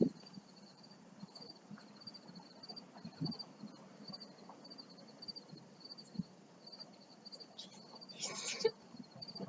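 Crickets chirping steadily, a high pulsed chirp repeating about twice a second. A brief, louder rasping noise cuts in once near the end.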